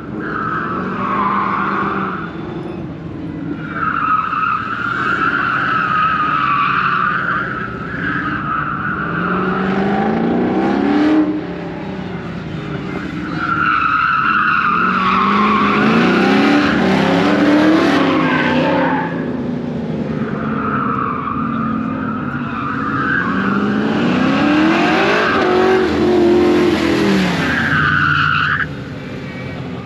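Pickup truck running an autocross course: tires squealing through the turns for most of the time, and the engine's pitch climbing as it accelerates three times, about ten, fifteen and twenty-four seconds in. The squeal cuts off sharply near the end.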